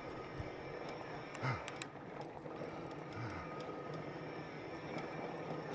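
Fat-tire e-bike being ridden on a trail: a steady hum from the tyres and the electric drive, with a faint steady whine over it and a few sharp rattling clicks. Two short low sounds fall in pitch, the louder about a second and a half in, a weaker one past three seconds.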